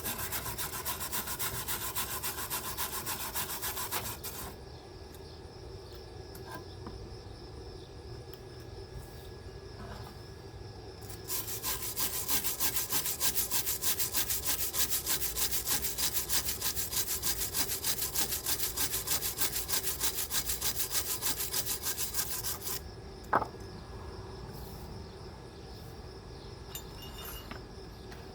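Wire brush scrubbed rapidly back and forth over a freshly laid MIG weld bead to clean it, in two spells: a few seconds at the start and a longer stretch in the middle. A single sharp knock follows near the end, with crickets chirping faintly in the pauses.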